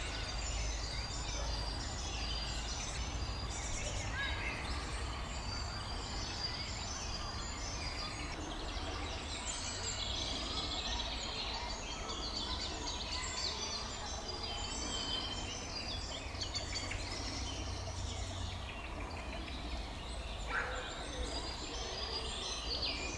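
Several songbirds singing and chirping, short repeated notes overlapping from different birds, over a low steady rumble.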